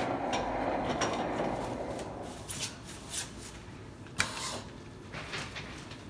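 Steel-chair foot-cap insertion machine at work: a steady hiss for the first two seconds, then a run of sharp mechanical clacks and knocks, the loudest about four seconds in.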